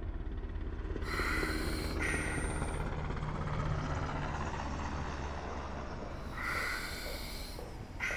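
Slow breathing through an oxygen mask, each breath a hissing draw and release. One breath comes about a second in and another about six seconds in, over a low steady hum.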